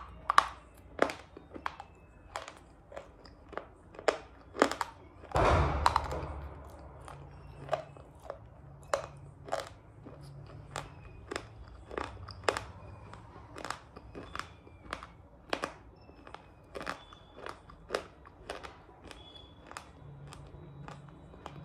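Close-up crunching of a mouthful of crunchy shale clay being chewed, sharp crunches at a steady one to two a second. About five seconds in there is one longer, louder crunch.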